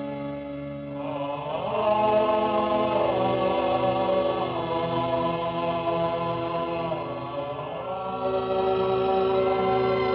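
Film theme song on an old soundtrack: instrumental music, then about a second and a half in a singing voice comes in, holding long notes that slide from one pitch to the next over orchestral accompaniment.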